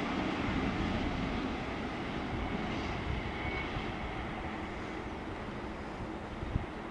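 Freight train of tank and stake wagons rolling away over the rails behind an electric locomotive, its rumble slowly fading. One sharp click near the end.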